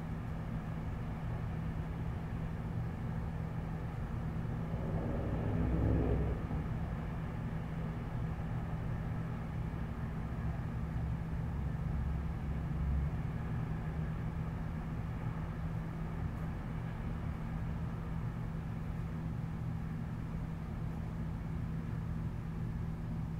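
Steady low hum of street and city ambience heard through a window. A vehicle passes, rising and fading about five to six seconds in.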